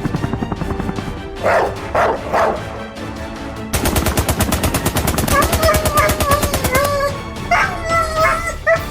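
Background music, then, about four seconds in, a rapid rattle of sharp clicks, more than ten a second, lasting about three seconds, with wavering high-pitched sounds over it.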